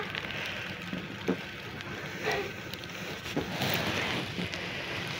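Steady outdoor hiss in heavy snowfall, with a few faint knocks and a brief faint call about two seconds in.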